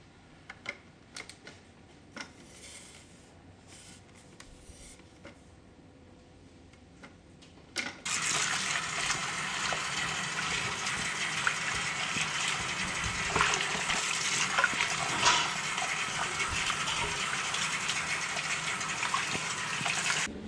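A few faint clicks, then about eight seconds in a sudden, steady rush of running water that stops abruptly near the end.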